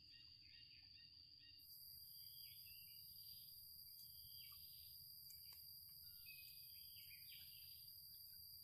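Near silence: faint forest stream ambience with a steady high insect drone and a few short bird chirps.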